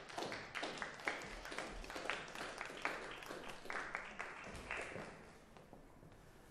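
Audience applauding, the individual claps of a modest crowd heard separately, dying away about five seconds in.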